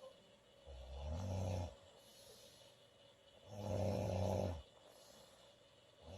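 A woman snoring in her sleep: two snores about three seconds apart, each lasting about a second, with the next one starting at the very end.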